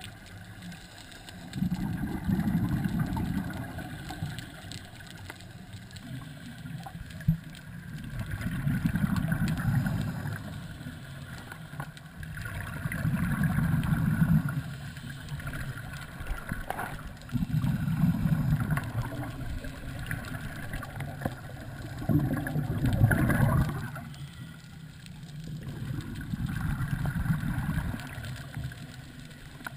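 Scuba regulator exhaust bubbles from a diver breathing out, heard underwater: about six bubbling rushes, each two to three seconds long, every four to five seconds in a steady breathing rhythm, with a quieter hiss in between.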